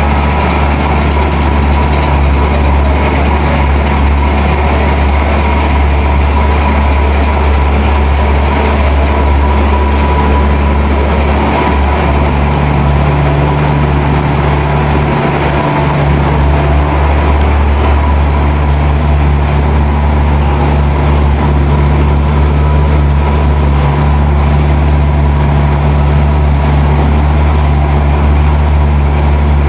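Snack production line machinery running with a loud, steady low hum and a faint high whine; a second, slightly higher hum note comes in about twelve seconds in.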